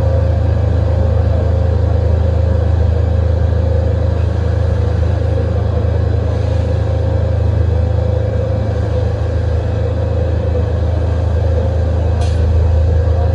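Takamaz XT-8MY CNC lathe running a machining cycle: a steady low hum with a constant mid-pitched whine, and a short high click near the end.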